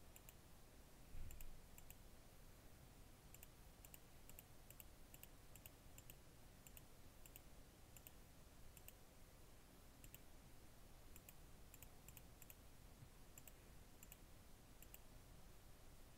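Faint computer mouse clicks, each a quick double tick, coming in irregular runs over a low room hush. There is one soft low thump about a second in.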